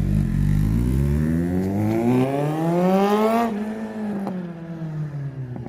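Motorcycle with an aftermarket exhaust doing a flyby: the engine note rises steadily under hard acceleration for about three seconds, then drops sharply as it passes and falls away, getting quieter.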